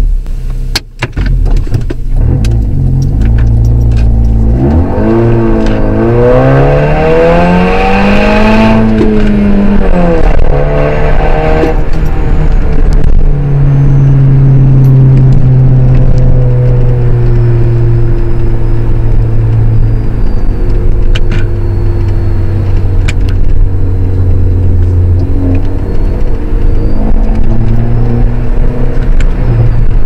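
Honda Civic's four-cylinder engine through a straight-through exhaust with the rear silencer removed, heard from inside the cabin. It revs up through the gears: the pitch climbs, drops at a gear change about nine seconds in, and climbs again. From about thirteen seconds it settles into a steady drone while cruising.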